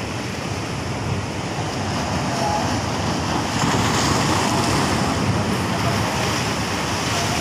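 Sea surf breaking and washing over shoreline rocks, a steady rush that swells louder about halfway through.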